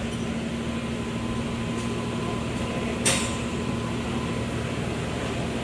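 Toyota Crown engine running steadily at a raised idle of about 1,900 rpm, an idle that climbs and drops on its own without the throttle being touched. A brief sharp noise comes about three seconds in.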